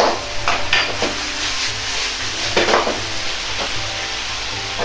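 Metal ladle stirring and scraping chicken and eggplant through thick sauce in a sizzling wok. A few separate scrapes stand out over the steady sizzle, the loudest about two and a half seconds in.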